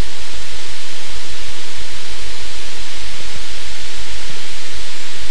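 Loud, steady hiss like static, strongest in the treble, over an uneven low flutter; no voice comes through.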